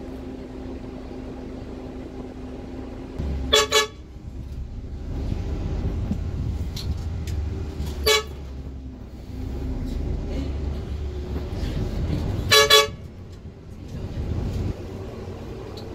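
Vehicle horn tooting in short beeps: two quick toots, then a single one, then a few in quick succession, over the low rumble of a slow-moving vehicle's engine.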